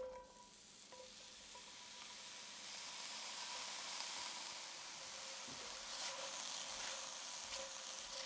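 Sliced mushrooms and red bell pepper strips hitting a hot cast-iron skillet and sizzling steadily, the sizzle building over the first few seconds. A few spatula scrapes on the pan come near the end.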